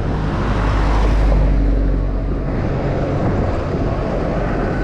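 Wind rumbling on the microphone of a camera riding on a moving bicycle, over road traffic noise, swelling a little louder about a second in.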